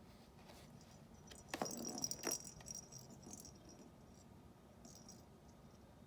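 Toy rattling in a cat's hunting box as a kitten bats at it: a short burst of clattering clicks with a high jingle about a second and a half in, and a faint rattle again near the end.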